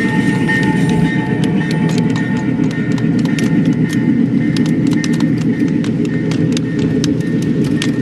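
Small diesel-powered model train rolling past: a steady low rumble from the locomotive and wheels, with many quick irregular clicks of the wheels running over rail joints and switchwork, growing busier as the cars go by.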